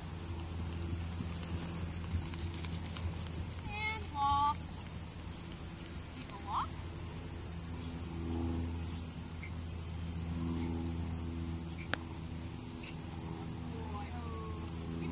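Insects chirring steadily in a summer grass field, a continuous high pulsing drone. A few brief pitched calls come through about four and six and a half seconds in, over a low steady hum.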